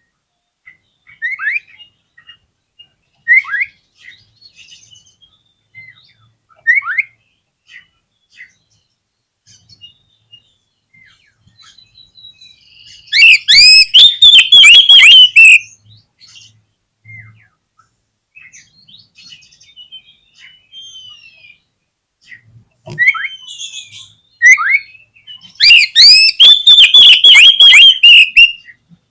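Oriental magpie-robin (kacer) singing: scattered short whistled notes, then two loud stretches of rapid, repeated notes, one about halfway through and one near the end.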